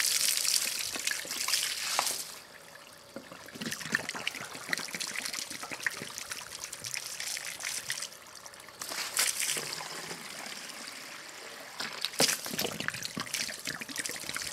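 Water splashing and trickling onto wet pavement as a lawn mower's fuel tank and fuel line are flushed out with hose water. The splashing is heaviest for the first two seconds, then drops to a lighter trickle with a few brief louder splashes.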